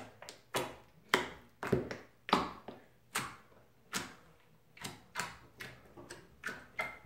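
Fingers poking and pressing a lump of thick clear slime, making a string of sharp sticky clicks and pops about two a second at uneven spacing, as the slime grips and lets go and air bubbles in it burst.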